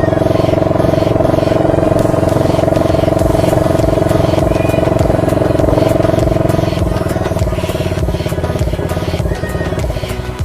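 125cc ATV engine running while riding, with a steady whine over the engine's pulsing; it eases off in the last few seconds.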